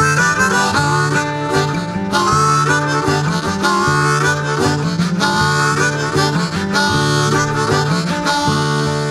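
Background music: an instrumental break in a blues-style song, with a harmonica lead over guitar and a steady beat.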